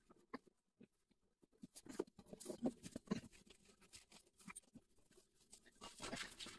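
Hands working a new cooling unit into place on the back of an RV absorption refrigerator: faint scattered clicks, taps and rustles of metal tubing and cardboard, with a longer scraping rustle near the end.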